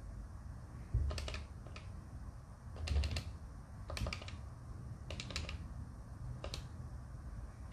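Number keys of a Polycom VVX 411 desk phone clicking as they are pressed in short runs of two or three quick taps, spelling out a username by multi-tap text entry. A couple of the presses land with a dull thump.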